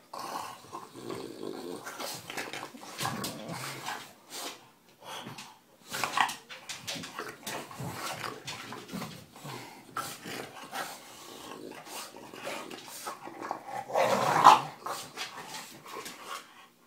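English bulldog puppy growling in play as it mouths and chews at socked feet, in uneven outbursts, with a louder outburst about fourteen seconds in.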